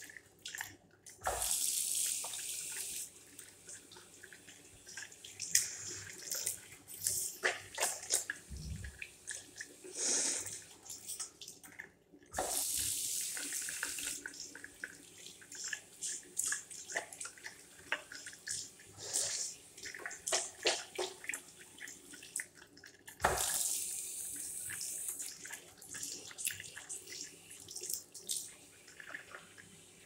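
Chrome tap running into a ceramic basin in three short spells about ten seconds apart. Each spell starts sharply with a knock, and the water runs for a second or two. Between the spells come scattered splashes and drips.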